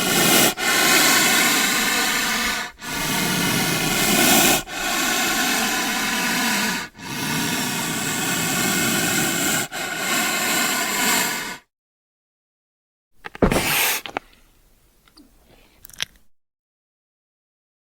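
A snake hissing: a run of long, loud hisses of about two seconds each with short breaks between, stopping about twelve seconds in. A short loud burst follows about a second later, then faint scattered sounds.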